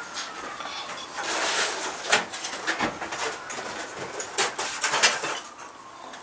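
Light clinks and taps of glazed ceramic pieces and metal wire being set onto refractory kiln posts. It comes as a handful of sharp clicks spread through, the loudest about two seconds in and again about five seconds in.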